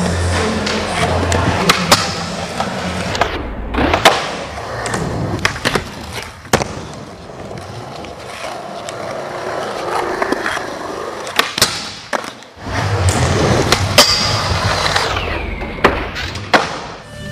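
Skateboard wheels rolling on smooth concrete, broken again and again by sharp clacks of the board popping and landing. Near the end there is a scraping sound from the board on a ledge or rail.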